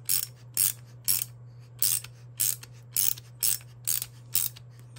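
Ratchet socket wrench clicking as it slowly turns the feed screw of a copper-tube flaring tool, about two sharp clicks a second, driving the flaring cone into the end of the copper pipe.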